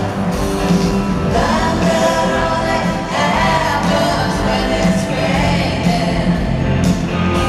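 Live rock band playing, with drums and electric guitar under a female lead vocal.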